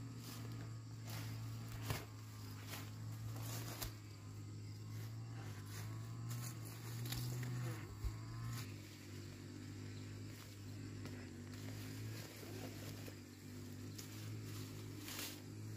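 Footsteps and the rustle of leafy peanut plants being walked through and pulled up, in scattered short crackles, over a steady low hum.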